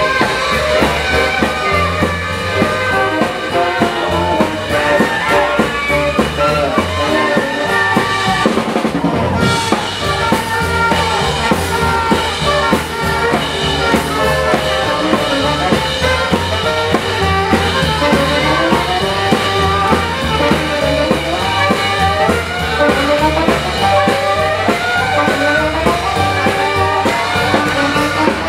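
A live hot-jazz swing band playing an up-tempo number: clarinet, trumpet and saxophone lines over piano, walking double bass and a drum kit.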